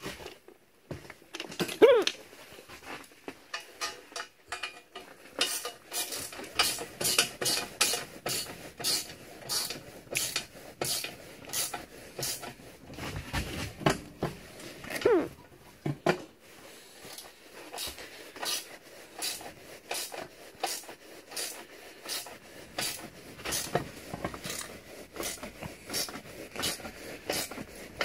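Light metal clicks and clinks, a few a second, as nuts are worked onto the studs of a welded stainless-steel exhaust manifold on a 4G63 engine, with a short falling squeal near the start and another about halfway through.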